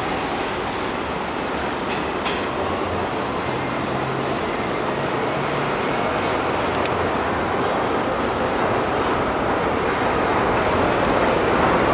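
New York City Subway 7 train running on the track, a steady rumble with wheels clicking over the rail joints, slowly growing louder toward the end.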